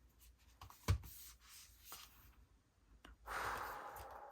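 K-pop album and its paper and plastic contents being handled: a few light taps, a soft knock about a second in, then a rubbing, rustling slide of paper or packaging near the end.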